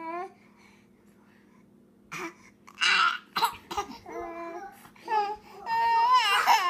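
Baby crying and fussing in the tug-of-war over a pacifier. A short cry comes at the start, then after about two seconds a few sharp, breathy gasps, then wavering wailing that builds near the end.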